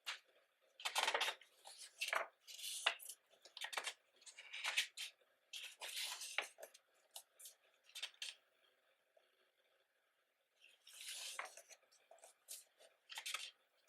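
Photobook pages being turned and handled: irregular soft paper rustles and flicks, with a short pause a little past the middle.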